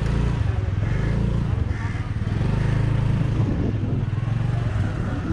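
A motor vehicle's engine running, a steady low drone whose pitch wavers slightly.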